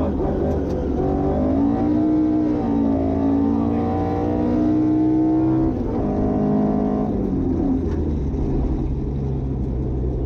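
Ford Escort RS 2000 rally car's engine heard from inside the cabin, pulling up through the revs about two seconds in and holding steady. It drops off near the middle and fades to a low rumble as the driver eases off.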